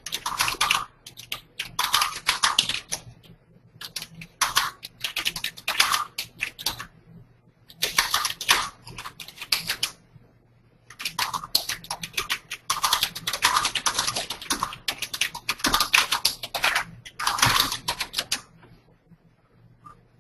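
Typing on a computer keyboard in quick bursts of keystrokes with short pauses between them. The typing stops a little before the end, over a faint steady hum.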